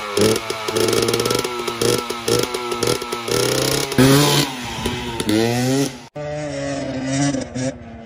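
An engine revving up and down again and again, its pitch rising and falling, with abrupt breaks and a brief dropout about six seconds in.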